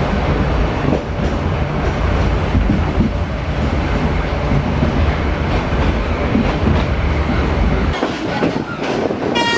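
Yangon Circular Railway train running, heard from on board: a steady rumble and rattle of wheels on the track. The deep rumble drops away about eight seconds in, and a horn begins to sound at the very end.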